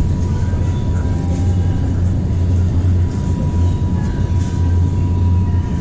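Supermarket interior ambience: a steady low rumble with a thin, steady high whine held throughout and faint distant voices.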